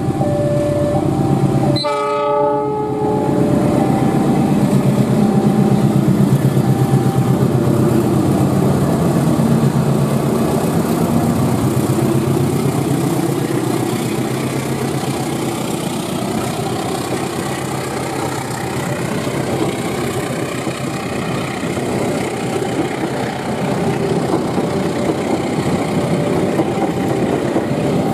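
Diesel-electric locomotive sounding a short horn blast about two seconds in, then its engine rumbling loudly as it passes hauling a passenger train. This is followed by a steady clatter of the carriages' wheels over the rail joints.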